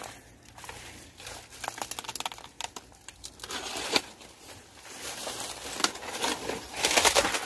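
Footsteps crunching through dry leaves and scrub, with plants brushing and rustling against the body: irregular crackling that grows busier near the end.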